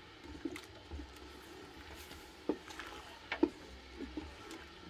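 Coyol palm fruits being stirred in a pot of liquid over the fire: faint wet movement with a few light, separate knocks.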